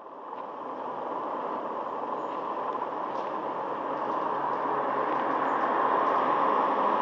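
Electric locomotive hauling a freight train of hopper wagons as it approaches, the running noise of wheels and train getting steadily louder.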